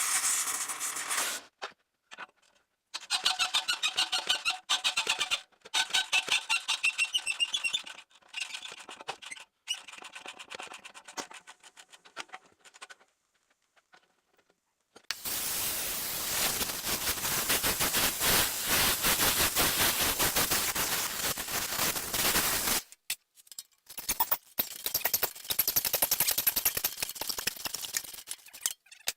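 Impact wrench hammering on rusted exhaust flange bolts in several short bursts with abrupt cuts between them, the longest run lasting about eight seconds, with squeaks as the bolts turn.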